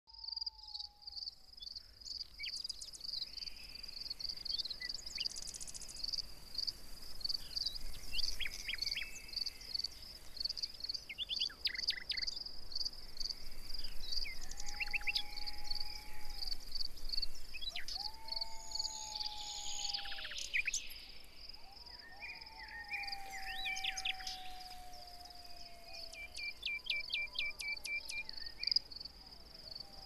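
Outdoor nature ambience: an insect trills high and steady, pulsing rapidly, while birds call over it with scattered short chirps, a quick run of notes near the end and a few long whistles that slide slowly downward.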